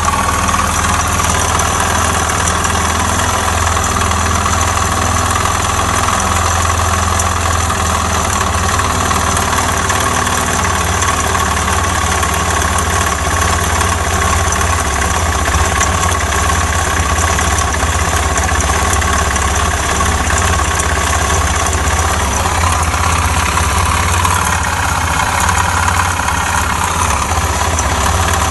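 Suzuki Djebel 250XC's single-cylinder four-stroke engine idling steadily with a knock in the motor, a sign of a serious internal fault: after this knock the engine would not start again.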